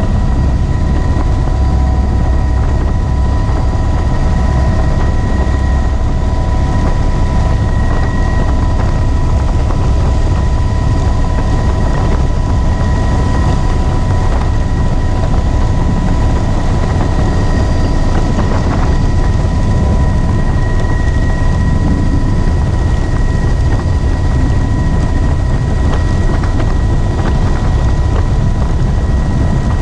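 Helicopter in flight, heard from inside its doors-off cabin: a steady low rotor and engine rumble with a steady high whine on top, and wind rushing in through the open doors.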